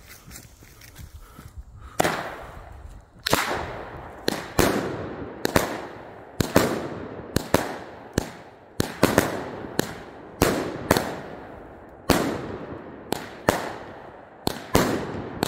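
A 16-shot, 200-gram consumer firework cake firing. The fuse burns for about two seconds, then the shots go off one after another, about one to two a second: each is a sharp bang with a short fading tail.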